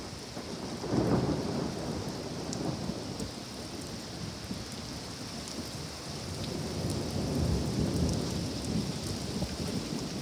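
Steady rain, with rolls of thunder: a rumble about a second in and a longer low rumble building around seven to nine seconds in.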